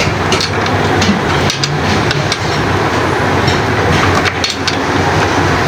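Metal spanner clicking against a chainsaw's bar nuts as they are tightened, a handful of sharp clicks over a loud, steady mechanical rumble.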